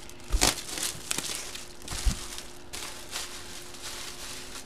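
Clear plastic bag crinkling and rustling as a cardboard box is handled in and out of it, with a few sharp knocks of the box being moved, the strongest about half a second in.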